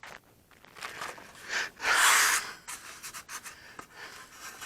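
Tape being handled and rubbed down onto a balsa leading edge: a few short rustling, rubbing sounds, the loudest about two seconds in.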